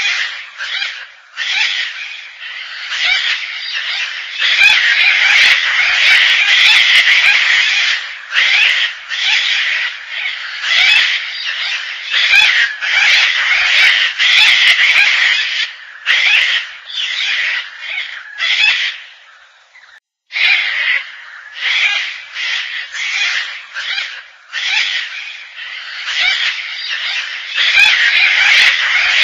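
Gang-gang cockatoo calling over and over, the calls running together into near-continuous stretches at times, with a brief break about twenty seconds in.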